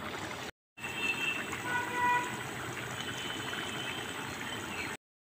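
Steady background noise, with a short horn-like toot about two seconds in. The sound drops out briefly near the start and stops just before the end.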